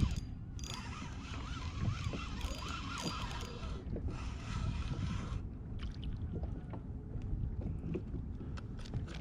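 Water moving against a fishing kayak's hull, with wind rumbling on the microphone. A hiss runs for about the first five seconds, and scattered small clicks and knocks follow.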